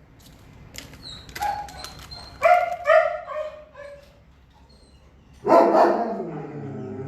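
Dogs barking in shelter kennels: a few clicks, then two short barks about two and a half and three seconds in, and near the end a longer drawn-out call that falls in pitch.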